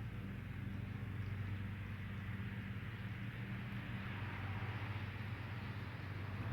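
Electric air blower of an inflatable water slide running steadily: a constant motor hum under a rushing hiss.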